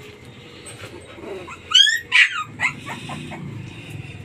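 Very young pitbull puppies whimpering and squealing: two loud rising cries just before halfway, followed by a few shorter, weaker whimpers.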